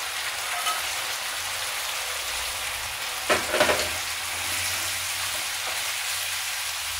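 Sweet and sour sauce sizzling in a frying pan as fried barracuda pieces are tipped in and stirred with a spatula, with one sharp knock about three seconds in.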